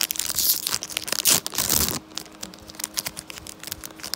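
Foil Pokémon booster pack being torn open: a loud stretch of tearing and crinkling foil for about two seconds, then fainter crinkles and ticks as the wrapper and cards are handled.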